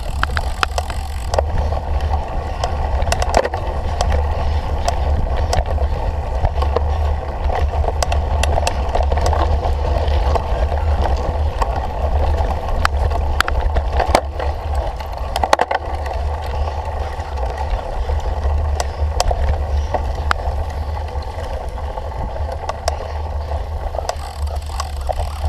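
Cyclocross bicycle ridden hard over rough off-road ground, heard close up from the bike or rider: a steady low rumble of wind and tyre noise with frequent sharp rattles and clicks from the bike.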